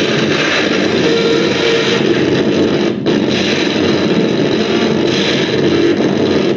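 Live experimental noise music played from a laptop and electronics: a loud, dense, distorted wall of sound that runs on steadily, with a brief dip about three seconds in.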